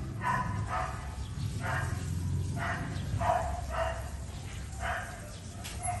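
A dog barking repeatedly, about eight short barks spaced irregularly over a steady low hum.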